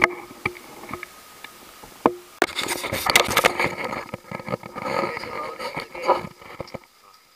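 Wind buffeting the microphone, with scattered knocks and scrapes against a wooden boat; the sound cuts off suddenly near the end.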